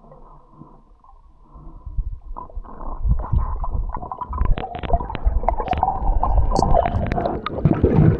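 Water heard through a camera in or at the water: muffled low bubbling at first, then from about two seconds in louder gurgling and sloshing with many sharp clicks and knocks.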